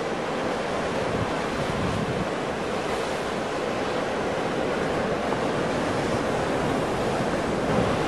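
Ocean surf: breaking waves making a steady, continuous wash of noise, with no single crash standing out.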